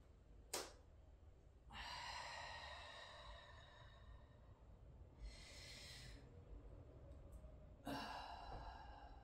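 A woman's slow, deep breathing through cat-cow yoga stretches: a long sighing exhale of about three seconds starting near two seconds in, a shorter hissing breath around five seconds, and another sighing exhale near the end. A brief click sounds about half a second in.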